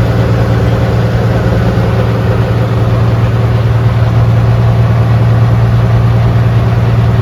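Local tour boat's engine running with a loud, steady drone.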